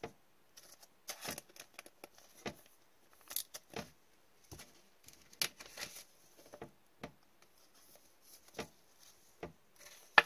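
Trading cards being handled and flipped through one at a time: irregular light clicks and short swishes as the cards slide and tap against each other. A sharper click near the end is the loudest sound.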